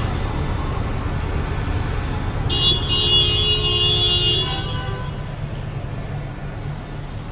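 Steady city street traffic rumble, with a vehicle horn sounding for about two seconds midway. The traffic noise grows quieter near the end.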